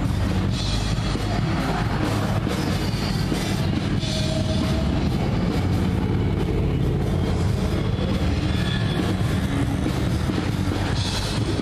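Rock music with drums and guitar playing over a steady low rumble of passing traffic.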